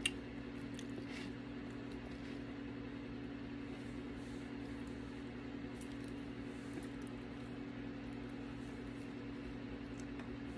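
A steady low hum in a quiet room, with faint mouth noises of someone chewing a bite of lemon pie with the mouth closed. A single sharp click comes right at the start.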